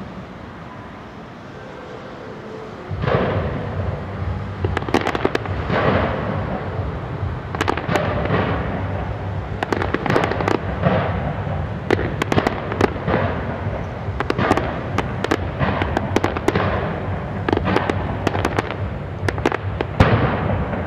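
Fireworks going off in rapid succession, starting about three seconds in: a dense run of sharp bangs and crackles that keeps on, with the loudest bang near the end.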